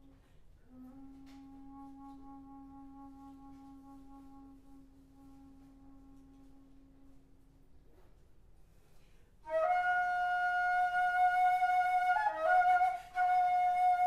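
Solo alto flute playing a soft, low note held for about six seconds, then after a short pause a much louder high note, sustained with a quick ornamental flick about twelve seconds in and a brief break before it carries on.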